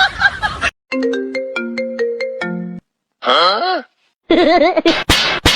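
A short ringtone-style jingle: a quick run of about a dozen clean, chime-like notes stepping up and down. It is followed by two brief sound effects with sliding pitch. Near the end, music with a steady beat of sharp strokes comes in.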